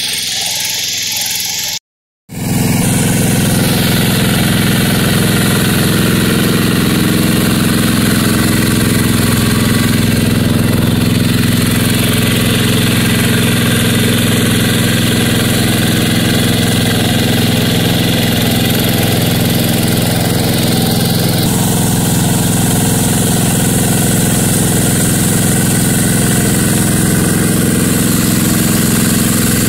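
Yanmar two-wheel hand tractor's single-cylinder diesel engine running steadily as it pulls a plough through a wet rice paddy. The sound drops out for a moment about two seconds in, then comes back louder and runs on evenly.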